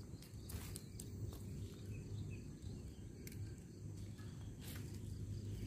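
Outdoor ambience: a steady low rumble with faint high insect tones and a few brief clicks.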